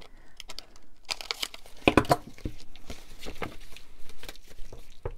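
Pinking shears cutting through paper pages, a run of short snips mixed with paper rustling, the loudest cluster about two seconds in.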